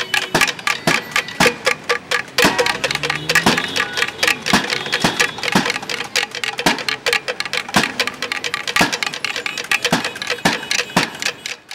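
Bamboo percussion tubes clacked with sticks, with a drum, in a street noise barrage: rapid, uneven clacking that runs on and cuts off suddenly near the end.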